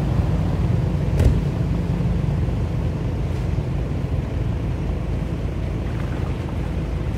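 Steady low rumble of wind buffeting the microphone, with one short sharp knock or splash about a second in.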